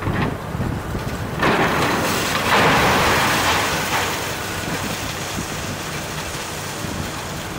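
A section of building wall breaking and crashing down as a Komatsu excavator pulls it over: a sudden rumbling crash of falling debris about a second and a half in, loudest around three seconds, then fading. The excavator's engine runs steadily underneath.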